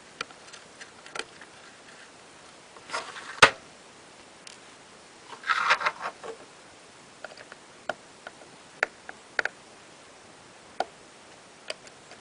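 Scattered small clicks and ticks of a Phillips screwdriver working tiny screws out of an iPod's hold-switch assembly, with two brief scraping rustles and one sharper click about three and a half seconds in.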